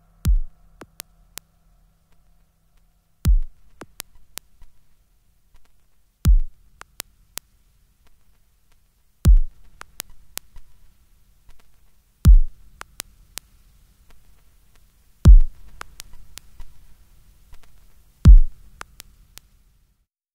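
Minimal electronic music: a deep, kick-like bass pulse that drops in pitch sounds every three seconds, seven times, with sparse sharp digital clicks in between over a faint low hum.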